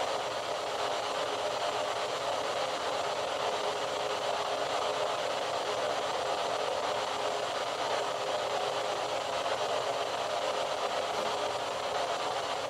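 Steady, even hiss of static-like noise, with no knocks, steps or voices standing out.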